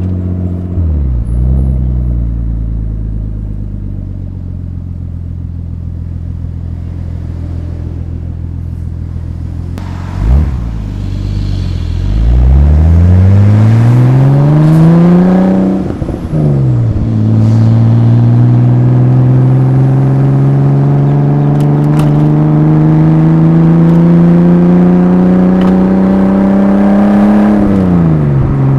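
Exhaust of an R31 Nissan Skyline's RB25DET Neo turbocharged straight-six, picked up by a microphone at the rear of the car. It runs steady and low at first, gives a short blip about ten seconds in, then pulls hard with the pitch climbing. It drops at a gear change about sixteen seconds in and climbs again in one long pull through the next gear before the throttle is lifted near the end.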